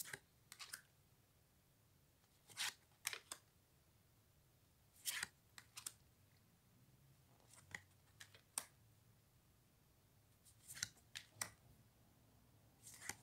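Large cardstock oracle cards being flipped through by hand, one at a time. Each card change gives a brief papery swish and a click or two, about every two to three seconds, against near silence.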